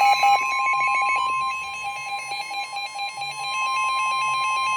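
NOAA Weather Radio warning alarm tone: a steady single-pitch tone sounding through weather radios, overlaid with fast pulsing electronic beeps, which are most prominent in the first second. It is the attention signal for a severe thunderstorm warning.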